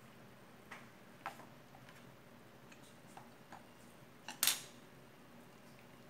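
Light clicks of wooden chopsticks picking at chicken in a paper takeaway box, then a louder clatter about four and a half seconds in as the chopsticks are set down on the table.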